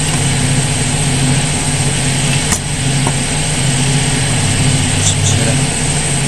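An engine idling with a steady low hum, and a single sharp click about two and a half seconds in.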